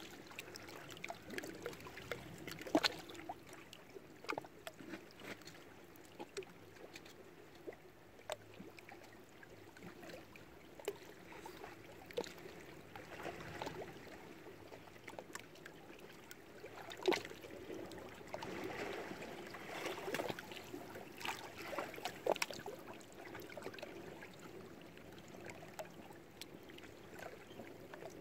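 Small wind-driven waves lapping against shore rocks, with irregular short slaps and splashes of water over a steady wash.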